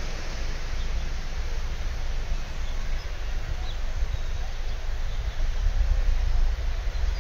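Outdoor ambience dominated by wind buffeting the microphone, a steady hiss with a fluttering low rumble, with a few faint bird chirps about halfway through.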